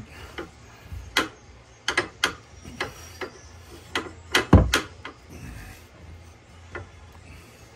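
Irregular metallic clicks and clinks of a hand tool working the engine-mount hardware of a motorcycle, with one heavier knock about four and a half seconds in.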